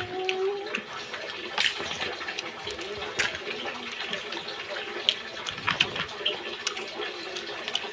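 Eating cooked crab by hand: wet mouth and chewing sounds, with a few sharp clicks from handling the crab shell and spoon.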